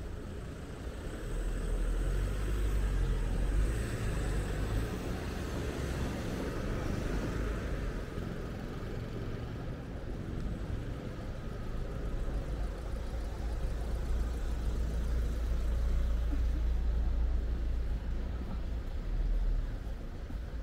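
Street ambience with car traffic: a low, steady rumble of cars running and passing, swelling twice.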